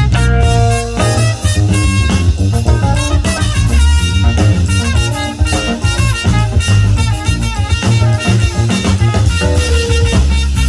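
A live band playing an up-tempo instrumental with a drum kit and a strong bass line, its notes held over a steady beat.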